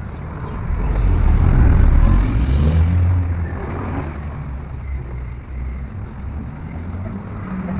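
Low vehicle engine rumble that swells about a second in and eases back after about three seconds to a steadier drone.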